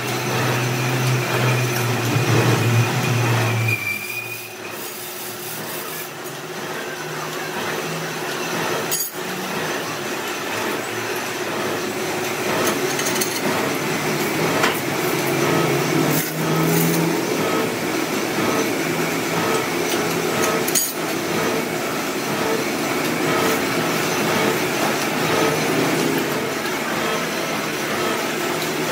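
Heavy belt-driven lathe and workshop machinery running with a steady mechanical noise, with a few sharp metallic knocks as a large crankshaft is set up on it.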